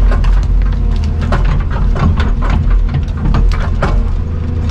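Vehicle engine and road rumble heard from inside the cab: a steady low hum with frequent short clicks and rattles over it.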